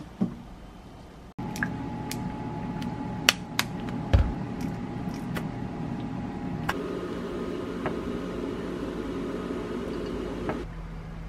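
An air fryer basket clunks shut near the start. After that, small sharp clicks and taps of a plastic squeeze bottle and chopsticks against a ceramic dish, over a steady hum that shifts in tone twice.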